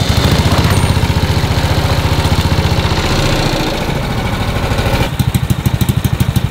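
Go-kart's small engine idling with a steady, fast putter.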